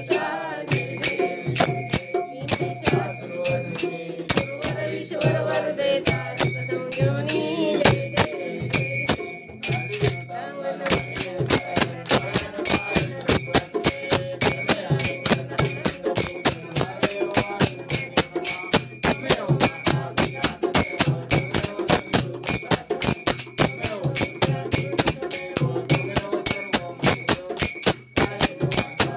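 Devotional aarti: small brass hand cymbals (taal) clashed in a fast, steady beat with a bright metallic ringing, while a group of voices sings the aarti, most plainly in the first ten seconds.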